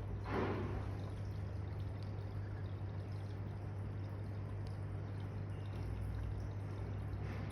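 Aquarium filter running: water trickling and pouring steadily over a low electric pump hum, with a brief louder rush of water about half a second in.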